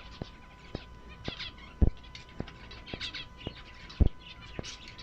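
Zebra finches chirping in many short, quick calls, over a steady faint hum and sharp ticks about twice a second.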